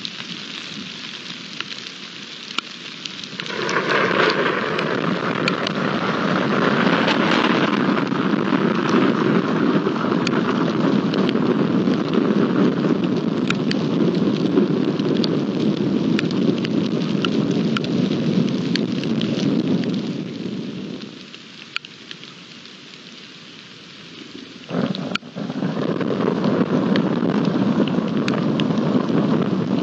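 Heavy rain falling in a thunderstorm, with thunder rumbling and raindrops ticking close by. The storm noise swells sharply a few seconds in, eases for a few seconds past the middle, then returns with a sudden loud onset.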